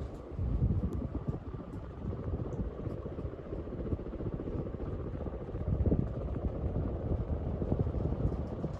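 Litex Windsong ceiling fan running on high speed: a steady whooshing rumble of moving air with gusty, uneven low buffeting.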